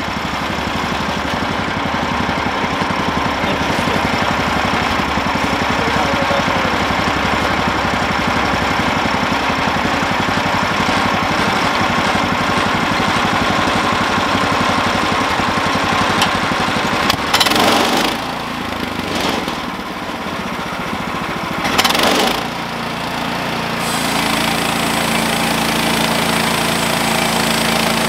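Engine of a Woodland Mills HM130 portable bandsaw mill running steadily, with two brief louder rushes of noise about two-thirds through. In the last few seconds it settles into a steadier drone as the band blade cuts into the pine driftwood log.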